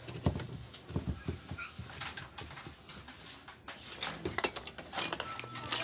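Irregular clicks and knocks of a replacement washing-machine gearbox's plastic housing being handled and pressed into place against the underside of the tub, with a faint high tone in the background near the end.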